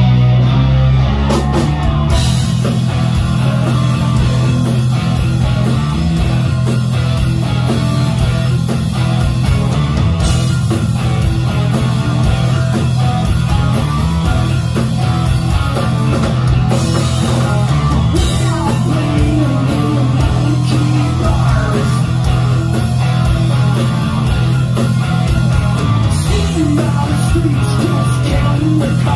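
Live rock band of electric guitars, bass and drum kit, kicking in suddenly at full volume and playing a steady driving groove, with some singing.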